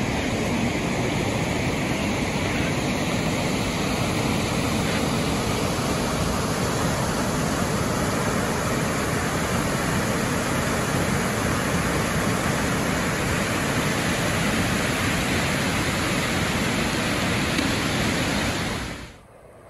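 Waterfall rushing: a steady, even noise of falling water that drops away sharply about a second before the end.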